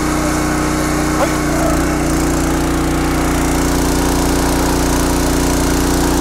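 Engine of a PLOW GLS15PRO engine-driven hydraulic log splitter running steadily while its ram presses against a pressure gauge; the engine note dips briefly and settles again about one and a half seconds in.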